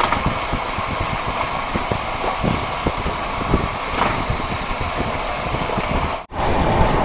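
Express passenger train running at about 110 km/h, heard from inside the coach: a steady rumble and rattle of the wheels on the rails, with many small knocks. Near the end it cuts out abruptly for a moment, then comes back slightly louder.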